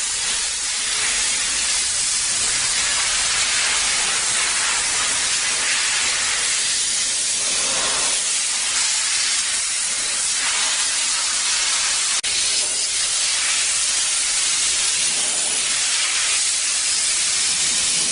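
Steam vapor cleaning unit jetting steam: a steady, loud hiss with a brief dropout about twelve seconds in.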